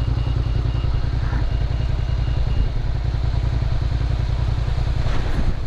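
Motorcycle engine idling with a steady low pulsing. A brief rush of noise comes near the end.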